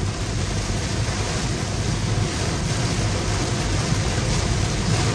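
Heavy downpour on a moving car, heard from inside the cabin: a steady wash of rain and wet-road tyre noise over a low road rumble.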